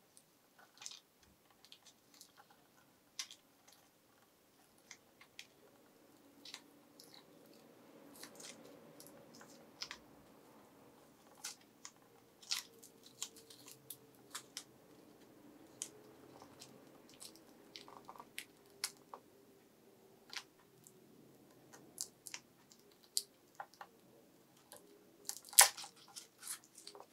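Faint, irregular small clicks and crinkles of masking tape and a brush being handled in a guitar body's cavity, with one sharper click near the end.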